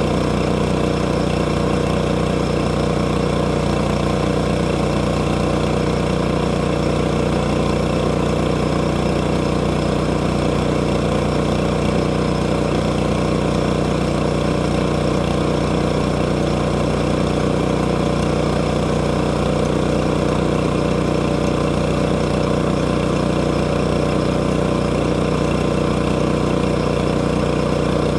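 An engine running steadily at one even speed, with no revving or change in load.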